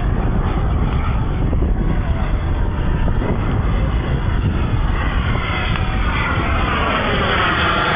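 Twin miniature jet turbines of a radio-controlled A-10 Thunderbolt model running in flight. The sound grows stronger in the second half as the jet comes overhead, with a sweeping tone that falls in pitch near the end.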